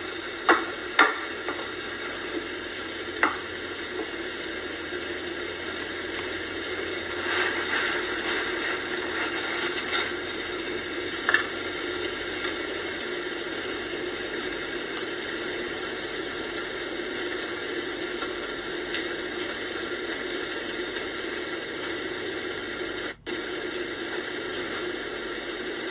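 Plates and food being handled on a stone kitchen countertop: a few sharp clinks in the first few seconds and one more about eleven seconds in, over a steady hiss.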